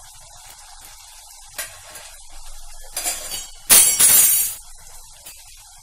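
Ground masala paste sizzling in hot oil in a kadhai, with a few light clinks of a metal spoon against the pan and a louder, ringing scrape-and-clatter about four seconds in.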